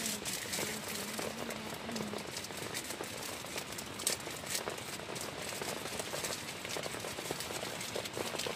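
Heavy rain pattering steadily on a tent, with many separate drop hits and a few sharper ones. A faint low hum runs through the first two seconds.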